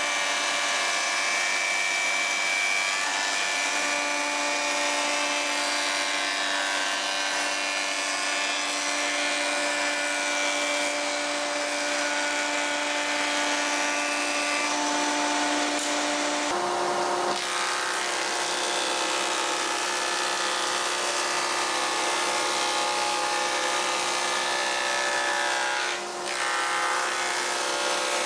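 Jointer running as a wooden chair part is pushed across its cutterhead: a steady motor tone with a constant cutting hiss. About two-thirds of the way through the machine's pitch shifts, and there is a brief dip near the end.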